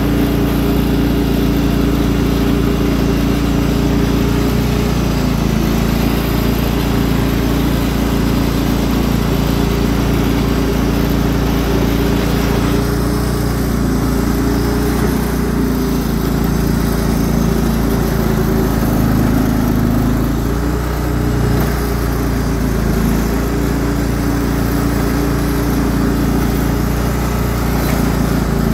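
Cub Cadet lawn tractor engine running steadily under load as its front blade pushes horse manure. Its note wavers a little midway through and then settles.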